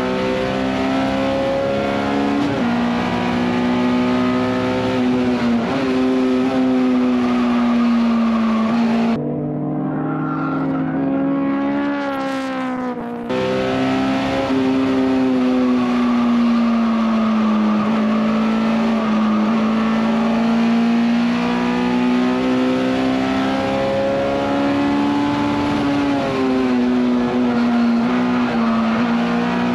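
Honda S2000 race car's inline-four engine heard from inside the cockpit at full throttle on track. Its pitch climbs through the gears, drops back at each shift, and falls away while braking for corners.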